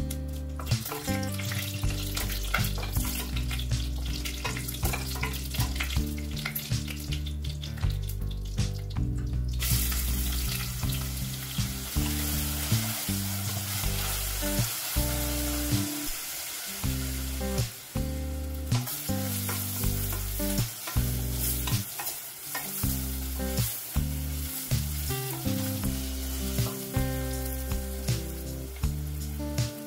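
Whole spices crackling and popping in hot oil in a pressure cooker base. From about ten seconds in comes a dense steady sizzle as sliced onions fry and are stirred with a wooden spatula. Background music with low notes plays underneath.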